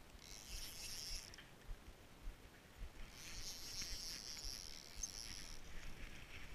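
Fishing reel being cranked to bring in line, a high whirring of the reel in two spells, a short one and then a longer one of about two and a half seconds.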